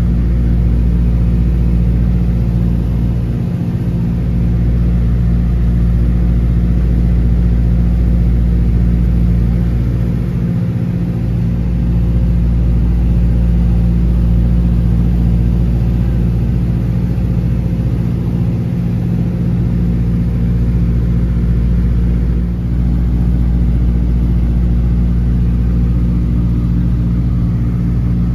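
The 1928 Ford Tri-Motor's Pratt & Whitney Wasp nine-cylinder radial engines running steadily in cruise flight, heard from inside the cabin.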